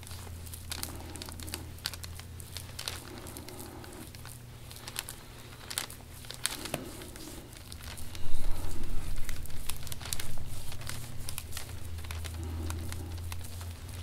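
Rustling and crinkling with many small scattered clicks, over a steady low hum. About eight seconds in, a louder low rumble rises and lasts a couple of seconds.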